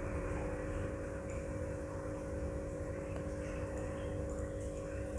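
Steady low background hum holding several fixed tones, with a few faint clicks on top, from mouse and keys.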